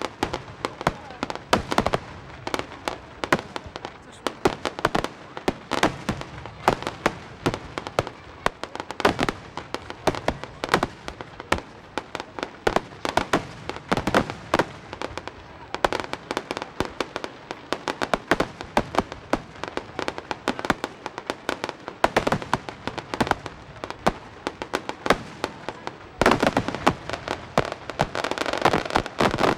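Fireworks going off: a rapid, continuous string of bangs and crackles, growing denser and louder about 26 seconds in.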